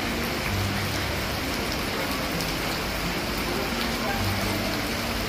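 Steady heavy rain hissing down onto flood water and a drowned street.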